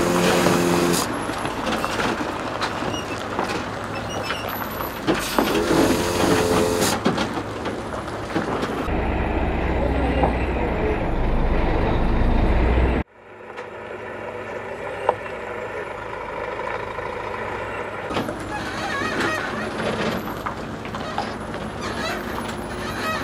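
Loaded log truck's diesel engine running at a crawl, with a few sharp clanks and a brief pitched tone. A deep engine rumble builds up and then cuts off abruptly a little past halfway, followed by quieter running.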